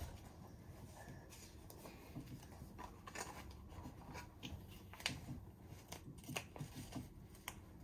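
Faint, irregular small clicks and rustles of hands handling dressing and cleaning supplies during care of a feeding-tube site.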